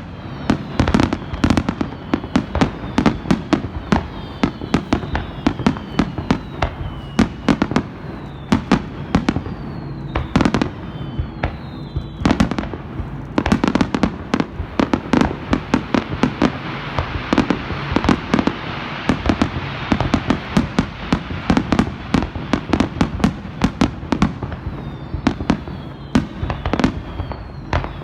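Fireworks display: a rapid, unbroken series of shell bursts, several bangs a second. Falling whistles sound several times, and past the middle a stretch of crackling fills in between the bangs.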